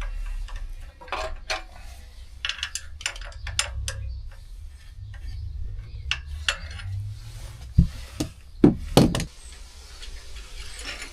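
Metal clinks and taps of a spanner working a motorcycle frame bolt loose and drawing it out, with a few heavier knocks about eight to nine seconds in.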